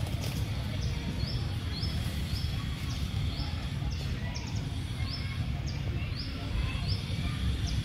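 Outdoor ambience: a short, high chirp, likely a bird, repeating roughly once or twice a second over a steady low rumble.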